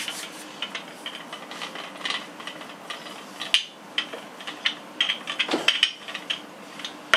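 Wooden rolling pin rolling out soft dough on a floured board, with many irregular light clicks and knocks as it turns and is pushed back and forth.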